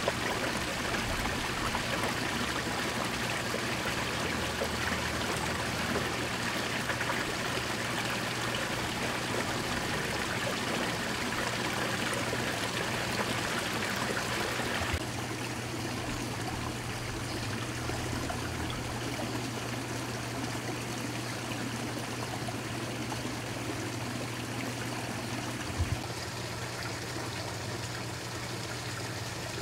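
Running water trickling steadily into a garden pond, a little quieter from about halfway through.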